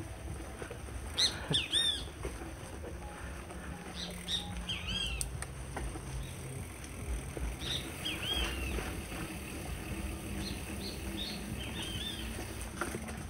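Mountain bike rolling along a dirt trail, its tyres giving a steady low rumble, with short high arched chirps now and then.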